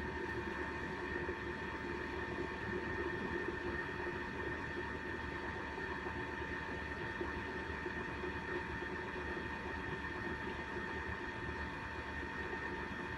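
Thermomix motor running steadily at a raised speed, stirring the porridge as it cooks: a steady whine over a low hum.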